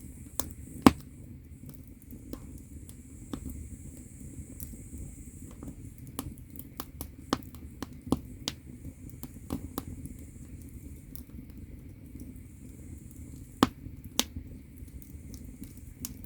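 Wood fire crackling in a traditional agungi firebox heating an ondol floor: a low steady rumble of burning logs with irregular sharp pops and snaps, the loudest about a second in and another near the end.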